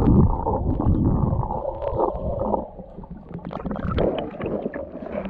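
Muffled underwater churning and rumbling of river water as picked up by a submerged action camera, with scattered sharp clicks. Strongest at the start, it eases off about halfway and swells again near the end.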